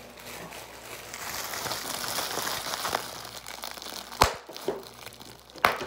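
Plastic bubble wrap being squeezed and crinkled in the hands, a steady crackling rustle, with two sharp snaps, one about four seconds in and one near the end.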